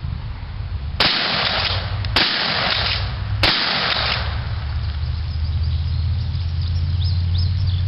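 Three shots from a .410 Mossberg 500 pump-action shotgun, a little over a second apart, each followed by a short echo, over a steady low rumble.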